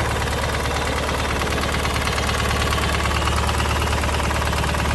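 Engine idling steadily through an exhaust silencer (muffler), a deep, even exhaust note with a fast regular pulse.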